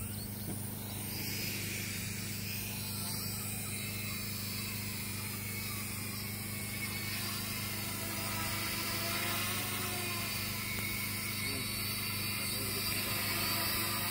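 Heavy-lift electric quadcopter (60+ lbs thrust) lifting off and climbing, its motors and propellers giving a steady whirring hum with a high whine on top that grows a little louder.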